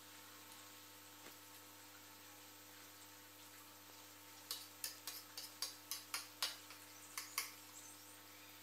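Metal spoon and fork clicking against a plastic plate while cutting up and picking up food: a quick irregular run of about a dozen light clicks in the second half, roughly four a second.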